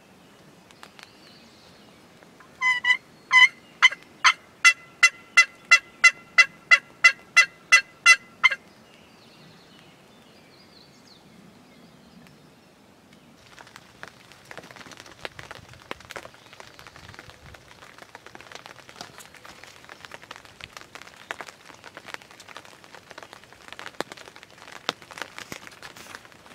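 A series of turkey yelps: about fourteen loud, evenly spaced notes of the same pitch, roughly two a second, lasting about six seconds. Later comes a fainter irregular rustling and crackling.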